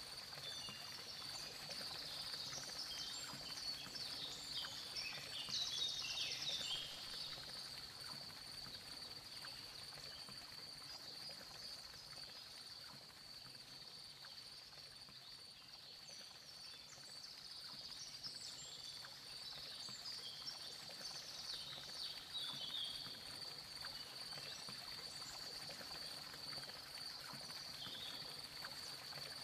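Outdoor nature ambience: a steady high insect trill throughout, with birds chirping in two spells, a few seconds in and again past the middle.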